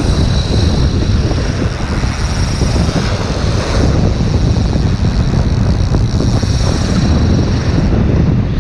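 Strong wind buffeting the microphone, a loud steady low rumble with a faint high whine above it.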